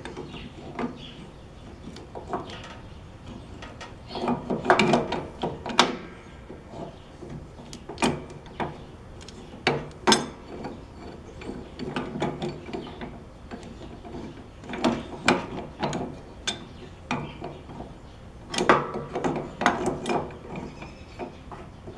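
Irregular metallic clicks, clanks and ratchet-like rattles of hand work on a Dayton metal-cutting band saw as its setting is pulled out a little further to correct the blade's tracking; no motor running.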